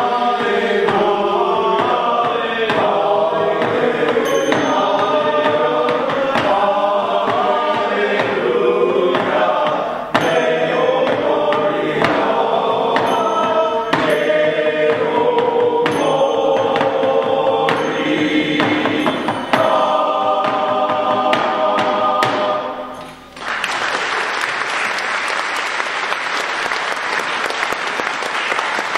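Male choir singing a song in close harmony; the song ends about 23 seconds in and the audience breaks into applause.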